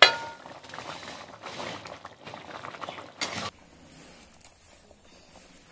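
A steel pan lid clanks against an iron kadai with a brief metallic ring. A few seconds of hissing and light clatter follow, with another clink about three seconds in, and the sound cuts off suddenly soon after.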